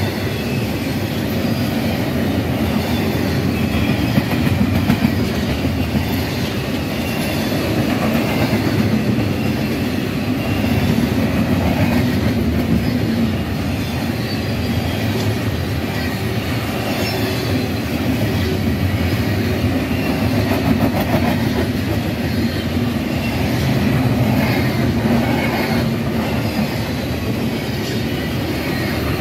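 Double-stack container train's well cars rolling past close by: a loud, steady rumble and clatter of steel wheels on the rails, with a faint wheel squeal now and then.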